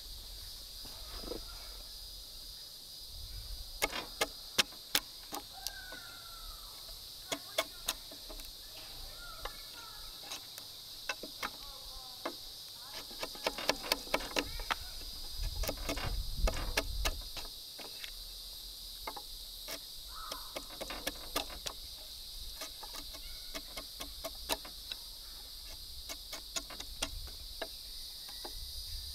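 Steady high-pitched insect chirring, with many irregular sharp clicks and knocks scattered throughout and a low rumble a little past halfway.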